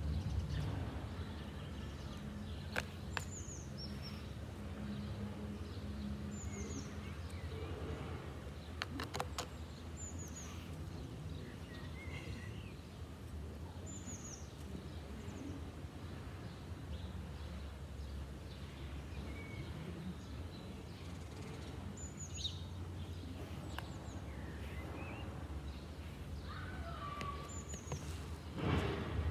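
Steady low background hum, with a small bird repeating a short, high, falling chirp every few seconds.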